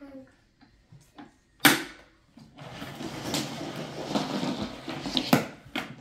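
A sharp knock of hard plastic, then about three seconds of uneven rattling and scraping with another knock near the end, as the top of a Henry vacuum cleaner is handled.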